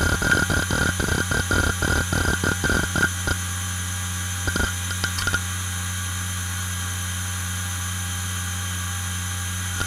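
IBM Travelstar 25GS 2.5-inch IDE hard drive (five platters, 5411 rpm) seeking hard under a read/write benchmark: rapid clicking of the head actuator, which stops about three seconds in. The drive then idles with a steady spindle hum and a short burst of seeks around the middle.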